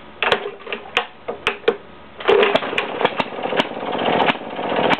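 Maytag Model 92 single-cylinder two-stroke washing-machine engine being started on its foot pedal. A few knocks come in the first two seconds, then it catches a little over two seconds in and keeps running.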